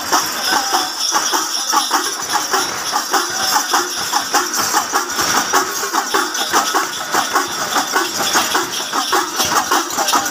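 Ensemble of udukku hourglass drums played in a fast, steady rhythm, with small brass cymbals ringing over them.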